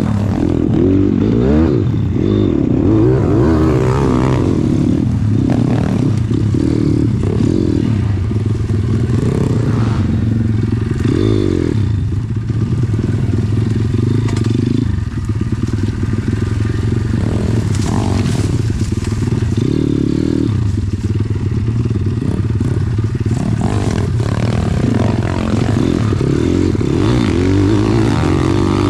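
Pit bike's single-cylinder four-stroke engine running under load, revving up and down over and over as the throttle is worked.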